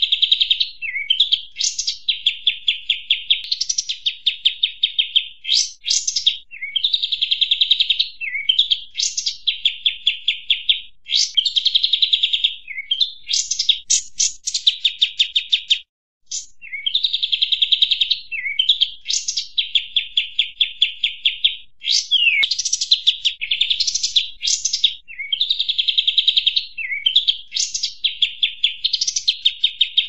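Looped bird-lure recording of kapas tembak bird calls: high, rapid chattering trills mixed with upward-sweeping notes, the phrase repeating about every two seconds, with a brief break about halfway through.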